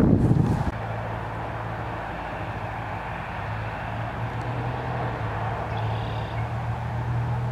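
Wind buffeting the microphone for under a second, then a steady low hum over outdoor background noise.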